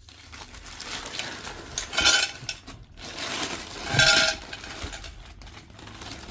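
Metal parts being handled and clinking together: two ringing metallic clinks about two seconds apart, with rustling handling noise around them.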